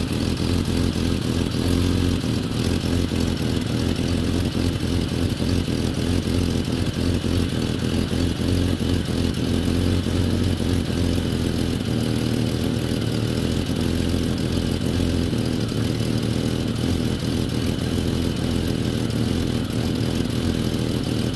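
1989 Jeep Cherokee XJ's 4.6-litre inline-six idling steadily.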